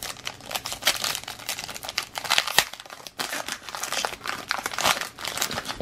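Foil wrapper of a Panini Status basketball card pack crinkling and tearing as it is ripped open and the cards are pulled out, with many quick sharp crackles.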